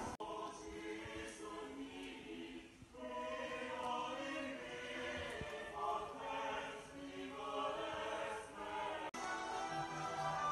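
Quiet background music of long held chords that swell and fade every couple of seconds.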